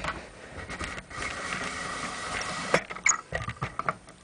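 Handling of a metal computer case and its I/O panel: a steady scraping for about a second and a half, then a run of light clicks and knocks.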